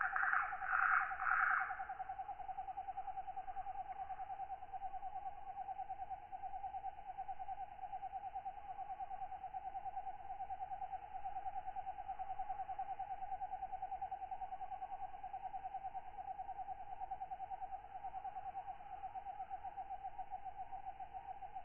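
Tropical night ambience of katydids and other night insects: a steady, fast-pulsing trill, with louder rasping katydid calls in the first two seconds and again near the end.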